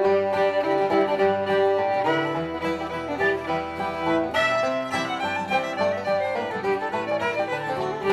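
Instrumental music led by a fiddle, playing a tune with many quick note changes, with a held note starting near the end.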